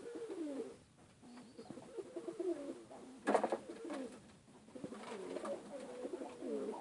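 Domestic pigeons cooing over and over in low, rolling calls, with a brief rustling burst about halfway through.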